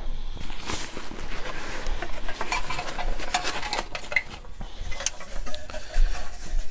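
Stainless steel canteen cup and its nested stand being pulled out of a nylon canteen bag: fabric rustling with irregular metal clinks and knocks, and a brief faint ring of metal partway through.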